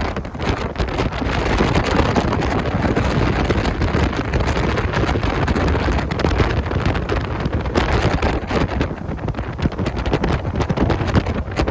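Heavy wind buffeting the microphone aboard a jet boat at speed, over the boat's steady running noise.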